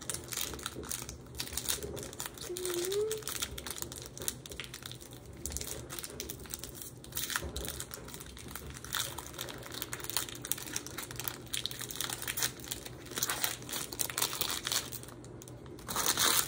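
Foil wrapper of a Pokémon trading-card booster pack crinkling in irregular rustles as it is handled and torn open, with a louder burst of crackling near the end.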